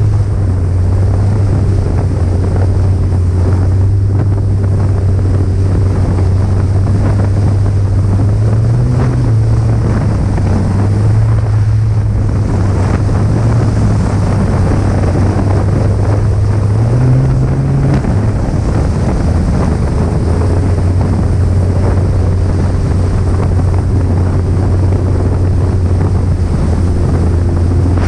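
Snowmobile engine running steadily at speed, its drone rising briefly in pitch about nine seconds in and again around seventeen seconds, with wind buffeting the microphone.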